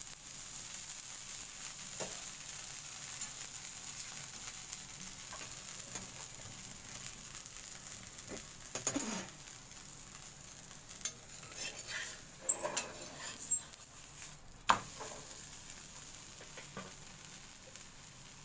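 Oil sizzling steadily under a paneer paratha on a hot iron tawa. Through the middle come scattered scrapes and clinks of a metal spoon against the pan, with one sharp knock about three-quarters of the way through as the paratha is turned.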